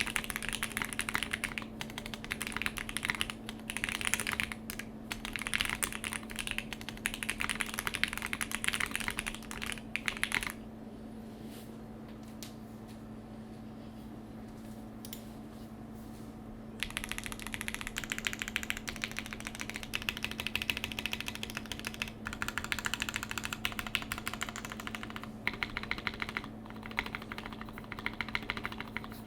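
Typing on a custom ai03 Polaris mechanical keyboard with a polycarbonate plate, stock Everglide Aqua King V3 linear switches and CRP Desko PBT keycaps: rapid runs of key clacks. The typing stops for about six seconds from roughly ten seconds in, leaving only a faint steady hum, then resumes.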